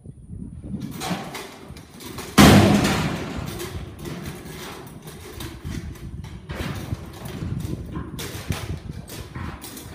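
A steel bucking chute gate bangs open with one loud crash about two and a half seconds in, then a young bucking bull bucks on the dirt arena floor with irregular thuds and clatter.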